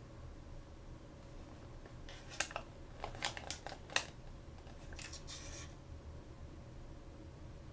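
Toy packaging being handled and opened by hand: a cluster of sharp clicks about two to four seconds in, then a brief rustle.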